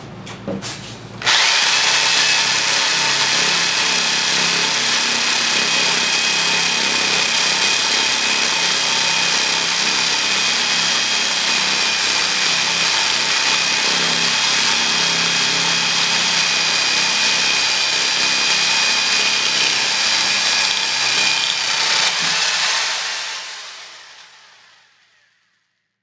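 Rotary hammer drill boring a masonry bit into a hollow concrete block. It starts sharply about a second in and runs steadily with a high motor whine, then dies away over a few seconds near the end.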